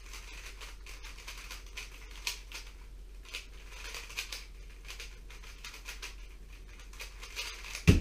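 A 3x3 speedcube being turned fast during a blindfolded solve, a dense run of plastic clicking and rattling from the layer turns. Near the end there is one loud thump as the cube is set down on the mat at the finish.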